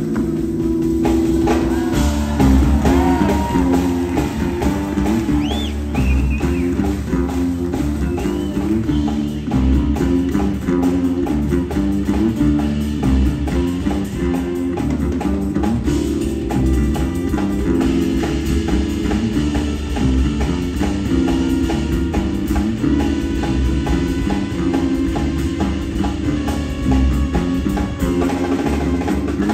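Live jazz band playing: fast runs of plucked-string notes over a drum kit.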